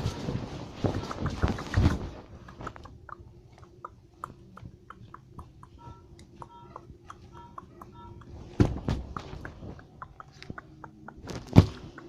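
Hare making a rapid, irregular run of short clicks, with crunching in the first two seconds and a few louder knocks later on.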